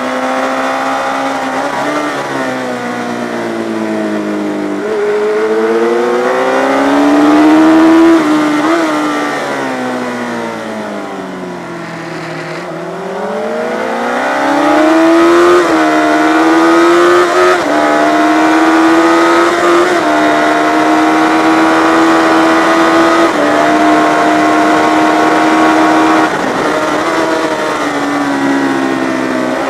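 Yamaha FZ600 inline-four sport bike engine at race pace. Its pitch climbs under throttle and drops in sudden steps at gear changes. It eases down to a low point about twelve seconds in, as if braking into a corner, then climbs again and holds high and fairly steady for a long stretch.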